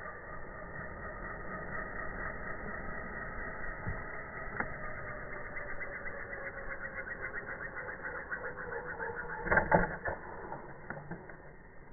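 Trex 450 electric RC helicopter's motor and rotor whining in flight, one pitch sagging slowly downward, with the owner blaming a faulty ESC that changes motor speed at random. About ten seconds in it slams into the ground with a loud crash, and the whine then fades.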